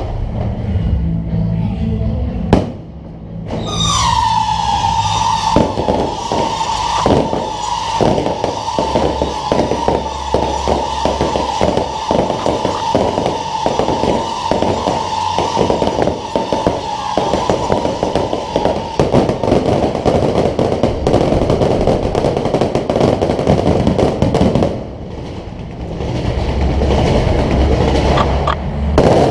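Fireworks going off: a whistling tone that drops in pitch about four seconds in and holds while a rapid string of bangs fires, then gives way to dense crackling for several seconds. Background music plays before and after the barrage.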